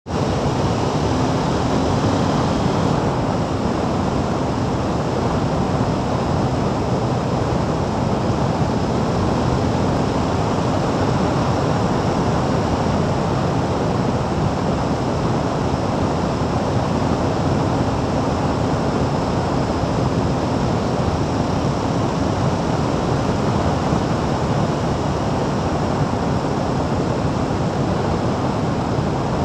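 Steady wind buffeting and road noise on the microphone of a camera mounted on a moving motorcycle at road speed.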